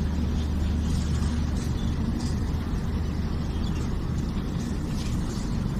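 Passenger train coach moving slowly out of a station, heard from its open doorway: a steady low rumble with a few faint ticks.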